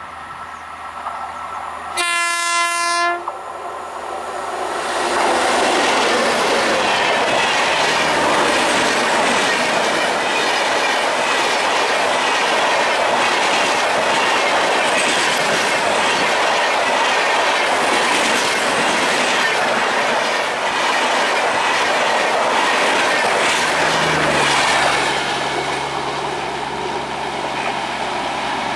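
An Indian electric train sounds one short horn blast, then runs past at speed, its wheels clattering over the rail joints in a loud, continuous rush. The rush drops away about 24 seconds in, leaving a steadier low hum.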